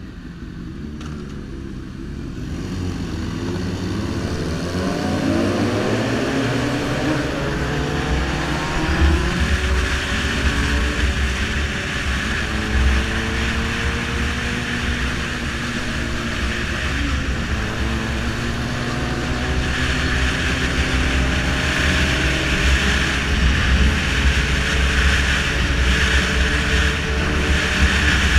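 Sport motorcycle engine pulling away and accelerating, its pitch rising, then running at a steady cruise. Wind rushes over the microphone and grows louder as speed builds.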